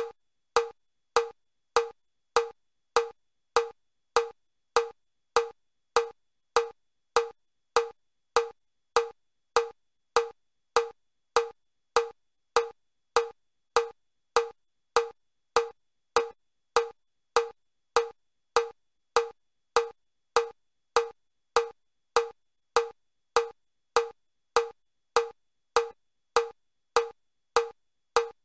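Metronome clicking steadily at about five clicks every three seconds, each a short wood-block-like tock. This is the level 3 pace of the Chester step test, setting the stepping rate for the stepper.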